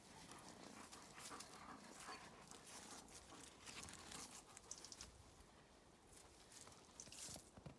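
Near silence, with faint, irregular rustles and light scratchy clicks.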